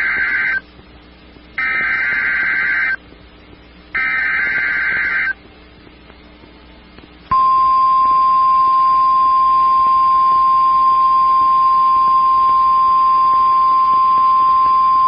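NOAA Weather Radio emergency alert. Three short bursts of SAME header data tones come about a second apart, then about seven seconds in the steady single-pitch 1050 Hz warning alarm tone starts and holds. The alarm tone signals that a new warning message is about to be broadcast.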